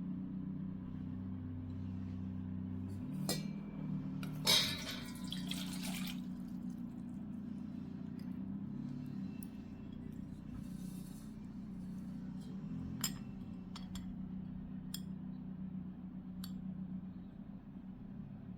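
Glass and liquid sounds: a clink, then liquid pouring for about a second and a half, followed by a few light clinks spread out later, over a steady low hum.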